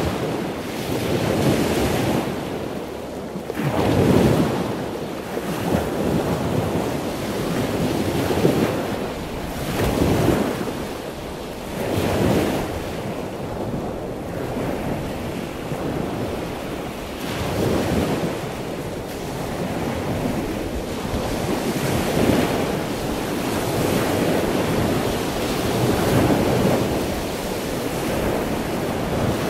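Sea waves washing in: a steady rushing that swells and eases every two to four seconds, with some wind.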